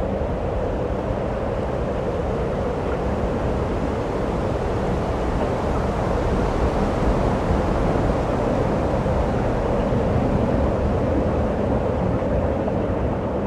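A steady rushing noise with a low hum in it, unchanging throughout.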